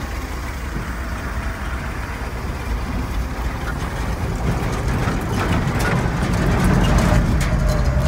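Old grain truck's engine running as it drives, heard from inside the cab, getting louder from about halfway through, with rattling knocks over the second half.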